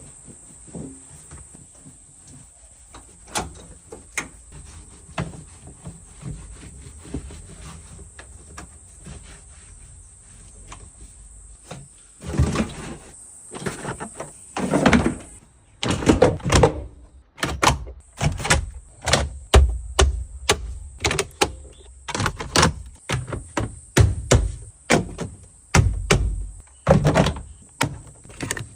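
A series of sharp knocks and thunks, a few faint ones at first and then loud ones about once a second through the second half, over a steady high hiss.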